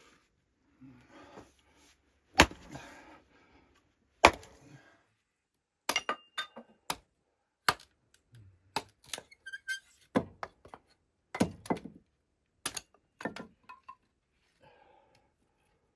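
Irregular sharp knocks and thunks: two heavy blows about two seconds apart, then a quicker, uneven run of lighter knocks and clicks.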